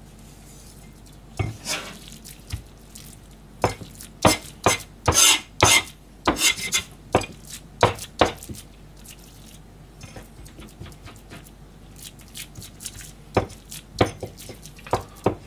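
A broad cleaver chopping minced salmon on a plastic cutting board, making irregular sharp knocks, a few a second. After about eight seconds they give way to quieter taps and scraping as the flat of the blade gathers the mince.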